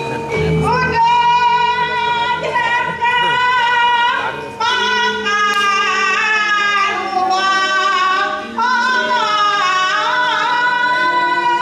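A high solo voice singing a Balinese dance-drama song in long, ornamented held notes. It comes in three phrases, with short breaks about four and a half and eight and a half seconds in.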